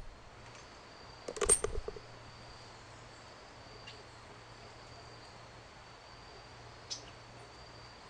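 Faint, steady high insect trill, like a cricket, over a low hum, broken about a second and a half in by a short cluster of knocks and clicks and once more near the end by a single click.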